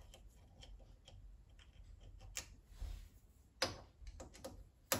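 Light metallic clicks and taps of a steel rear tool post mount being set and nudged into position on a lathe cross slide over its T-nuts, with a few sharper knocks in the second half.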